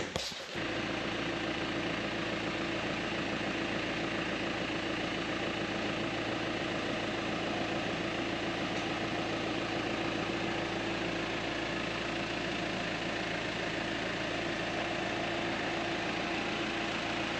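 Case IH Maxxum 145 tractor's diesel engine idling steadily, with the front loader holding a bale spear attachment still.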